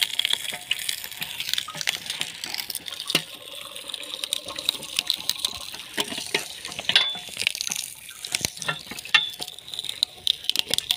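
Sugarcane stalk being crushed between the iron rollers of a geared cane-juice crusher, with irregular cracking and crackling as the cane splits. Juice trickles off the spout into a plastic bucket.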